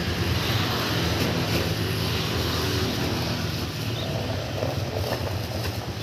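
Small motorcycle engine idling steadily, a low even hum.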